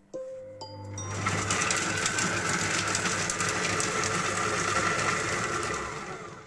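Monsieur Cuisine Smart food processor chopping onion and garlic with its blade at speed 5 for about five seconds. A short beep comes as it starts, the motor runs up to speed within about a second, holds steady, and winds down near the end.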